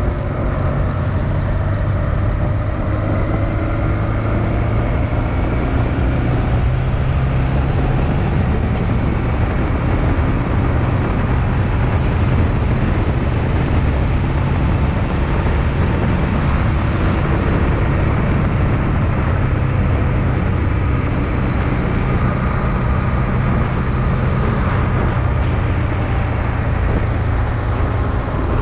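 Honda Transalp XL650V's V-twin engine running steadily while riding, under a steady rush of wind and road noise.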